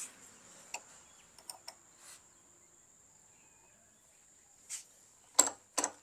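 Hand-tool work on a motorcycle's front brake caliper during brake bleeding. A few light metallic clicks come in the first half, then near the end a run of sharp taps about two and a half a second, over a faint steady high whine.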